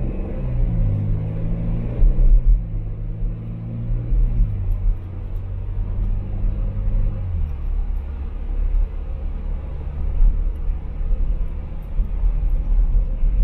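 Car engine and road noise while driving. The engine note rises near the start, then drops in two steps, about a third of the way in and again past the middle, over a steady low rumble.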